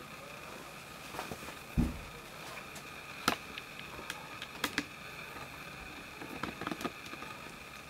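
Faint steady hum of a small room with a couple of thin steady tones. Over it come scattered soft clicks and rustles, and a dull thump about two seconds in.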